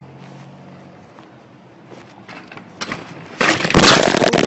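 Bicycle crash: the rider goes over the handlebars and he and the bike hit the asphalt. Light rattling builds into a loud clatter and scrape about three and a half seconds in.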